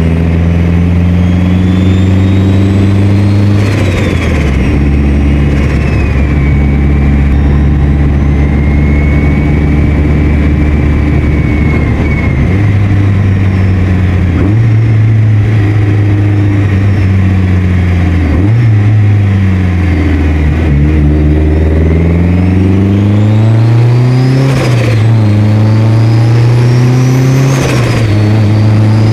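Mitsubishi Lancer Evolution VIII's turbocharged 4G63 four-cylinder pulling under boost, with a turbo whistle rising in pitch. On each throttle lift the turbo flutters: compressor surge, because the blow-off valve has been deleted. The flutter comes about four seconds in, then the car cruises at steady revs before two more hard pulls, each cut off by flutter, near the end.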